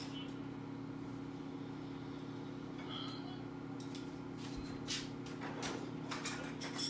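Steady low motor hum of a running kitchen appliance, with a few light kitchen clatters about five seconds in and near the end.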